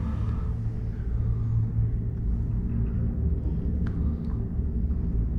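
Steady low rumble and hum inside a moving gondola cabin riding along its cable, with two faint ticks about four seconds in.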